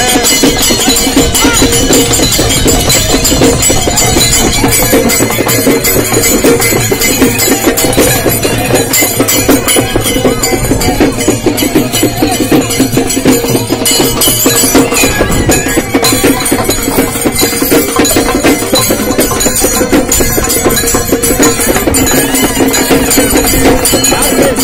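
Loud traditional procession music: fast, steady percussion with jingling and clacking strokes over a held note underneath.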